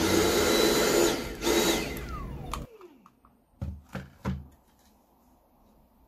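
Dyson V6 cordless vacuum's motor running on a test run after cleaning and reassembly, then cut off about two and a half seconds in, its whine falling away as the motor spins down. Three dull knocks follow about a second later.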